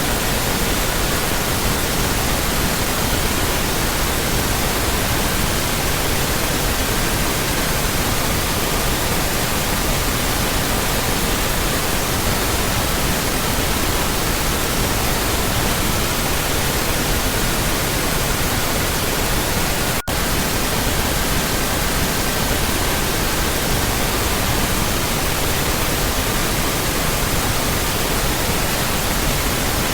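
Steady pink noise with faint pure tones in the 1.2–1.6 kHz range layered under it: 1200, 1320, 1440 and 1555 Hz, the tone shifting every few seconds. A momentary dropout comes about two-thirds of the way through.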